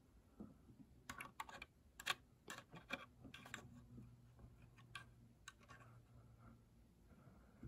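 Light clicks and taps of metal tweezers on a plastic scale model as its small hinged bomb bay door is prised open, about a dozen quick clicks bunched in the first half, then a few more.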